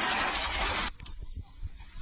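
Loud rushing noise from a Robinson R44 Raven II helicopter's rotors and rotor wash buffeting a phone microphone. It cuts off abruptly about a second in, leaving faint low knocks and handling noise.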